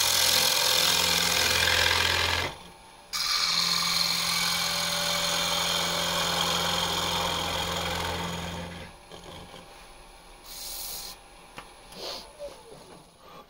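Turning tool cutting the inside of a wooden bowl spinning on an electric lathe: a loud, rough scraping hiss over the lathe motor's steady hum. The cut lifts off briefly about two and a half seconds in and then resumes. Near nine seconds in, the scraping and the hum both stop, leaving only a few faint knocks.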